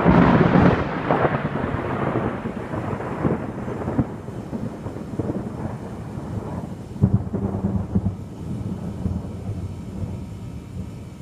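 Thunder: a sudden loud clap at the start rolls into a long crackling rumble that fades over several seconds. A second peal comes about seven seconds in and dies away near the end.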